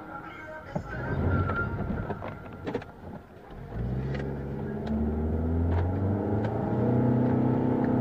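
Car engine heard from inside the cabin, accelerating as the car pulls away from a near standstill. The engine note grows louder and rises from about halfway through.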